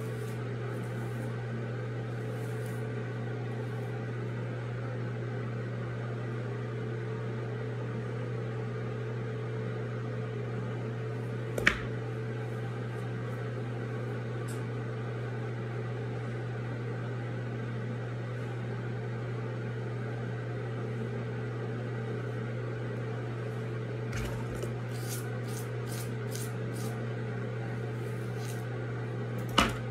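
A steady low machine hum, such as an appliance or fan motor running, with a sharp knock about twelve seconds in and another near the end, and a few faint ticks shortly before the last knock.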